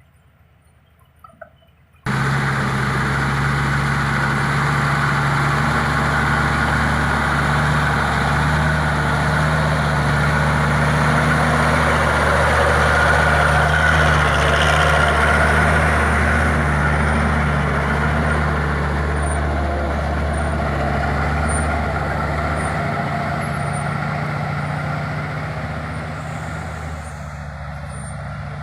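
Heavy diesel engine running steadily, cutting in abruptly about two seconds in and slowly growing fainter near the end.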